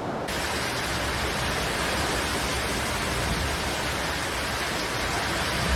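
Storm noise from a tropical storm: a steady, dense rushing hiss of heavy rain and wind, turning brighter shortly after the start.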